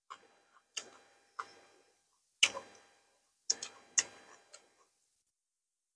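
Close-miked chewing: about eight short, wet mouth clicks and lip smacks spaced irregularly, the loudest about two and a half seconds in, with quiet between.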